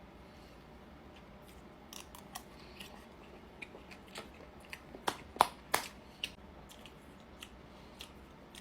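Close-miked eating sounds while eating steak: a scattering of short, sharp clicks and smacks, with several louder ones bunched together about five to six seconds in.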